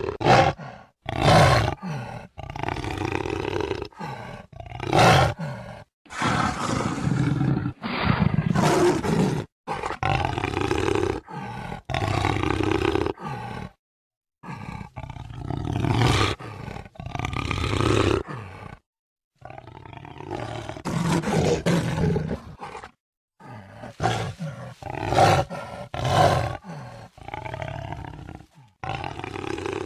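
Jaguar roars and growls, a series of separate loud calls of varying length that stop abruptly between one and the next.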